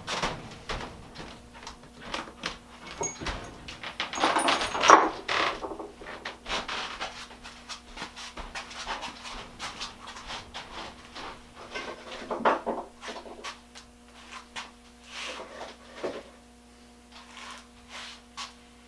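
Irregular scratching and scrubbing strokes with small knocks, from hand-cleaning a small metal drill chuck, busiest a few seconds in, over a faint steady hum.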